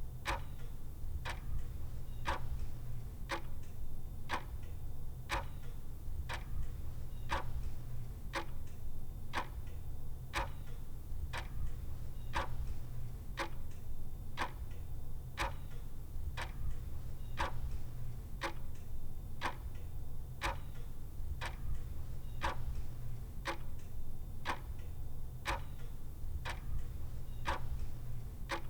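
Clock ticking steadily at about one tick a second, over a steady low hum.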